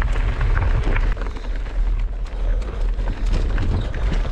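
Mountain bike riding over a rough dirt and stone trail: a steady low rumble of wind and ground vibration on the handlebar camera's microphone, with a run of small clicks and rattles from the tyres and bike over loose stones.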